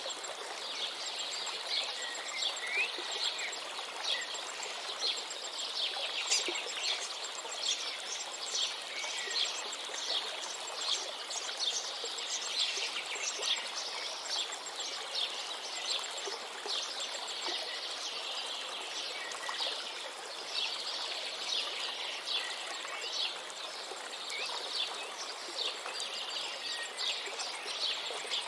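Many small songbirds chirping and twittering densely, a constant chorus of short high calls, over the steady rushing of a river.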